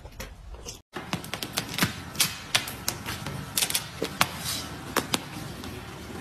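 A cat crunching dry kibble for under a second, then after a brief cut a run of sharp, irregular clicks like typing on a keyboard, several a second, for about four seconds.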